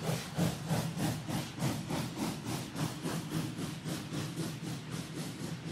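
Steam train running: a rapid, even chuffing, about five beats a second, over a steady low rumble, easing off slightly toward the end.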